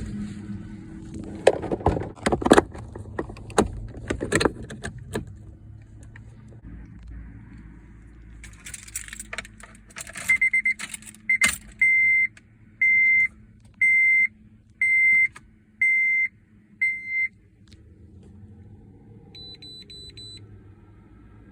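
Keys jangling and clattering, then a car's electronic warning chime beeping about once a second, seven or eight times.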